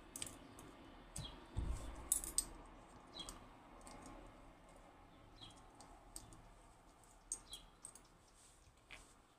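Small metal clicks and clinks of a Western Electric 30B lever lock's parts being handled as the lock is taken apart and its levers examined. There are a couple of dull knocks between one and two seconds in, and the loudest cluster of clicks comes just after two seconds. Faint short high chirps recur every second or two.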